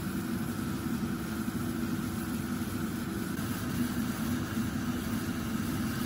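A steady machine hum, like a motor or fan running continuously, with a low drone and a fainter higher whine held at an even level.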